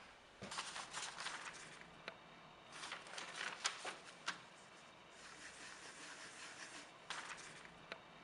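Newspaper pages being handled and turned, rustling in three bursts with a few crisp paper snaps.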